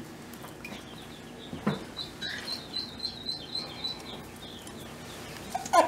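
A rapid series of short, high chirps, about five a second, from a small animal. There is a sharp knock about a second and a half in and a brief, louder rising sound near the end.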